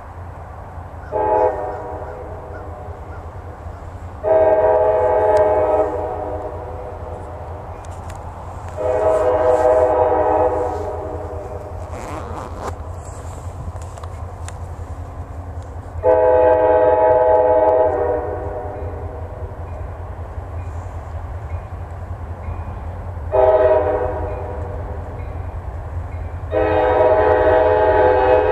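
Approaching locomotive's horn sounding a series of blasts: a short one about a second in, three long ones a few seconds apart, another short one, then a long one near the end.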